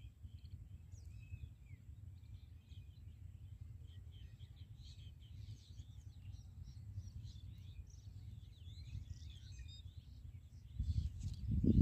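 Many small birds chirping faintly over a steady low rumble. About eleven seconds in, a louder low rumble starts.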